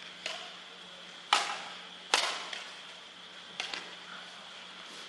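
Badminton racket strings hitting a shuttlecock in a rally: a series of sharp smacks a second or so apart, the two loudest about one and two seconds in.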